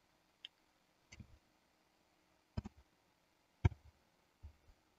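Computer keyboard keystrokes and mouse clicks: about half a dozen separate, irregular clicks, some with a dull knock, as a search term is typed and a node is placed in Blender.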